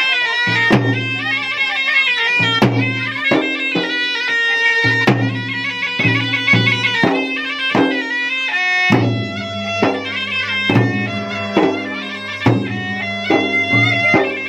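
Traditional Makassarese gendang music: sharp hand-and-stick strokes on the double-headed gendang drums at an uneven, driving rhythm, under a shrill, continuous reed pipe melody of the pui-pui kind.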